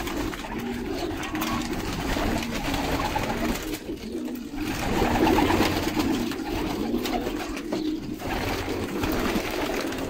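A flock of domestic pigeons cooing in a loft, low coos repeating over one another without pause.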